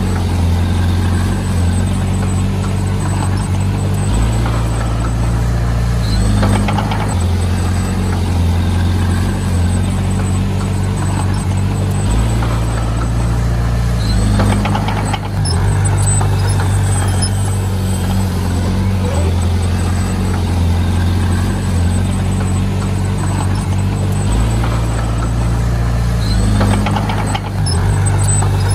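Heavy diesel engine of earthmoving machinery running steadily, its note changing in steps every few seconds.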